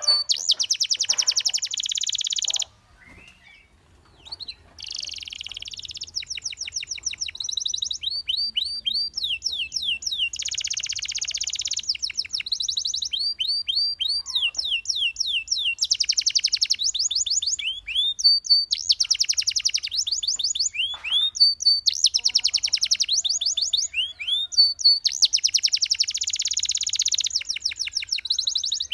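Domestic canary singing: long fast trills alternating with runs of quick rising-and-falling whistled notes, phrase after phrase, with a short pause about three seconds in.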